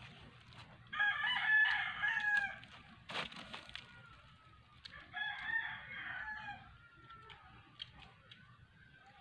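A rooster crowing twice, each crow about a second and a half long, with a short knock between the two crows.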